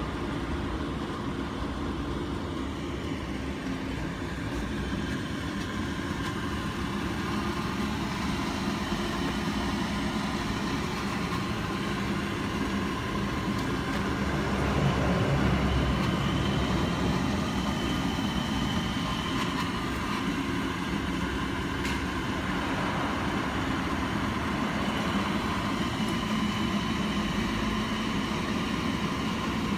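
Lampo static melting furnace running with a steady low rumbling hum, swelling slightly about halfway through.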